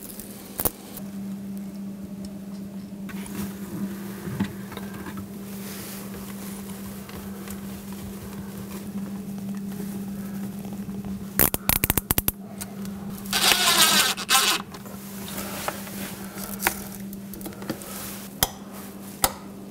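Handling sounds from fitting an LED strip light under a kitchen cabinet: a quick run of clicks about twelve seconds in, then a scrape lasting about a second, over a steady low hum.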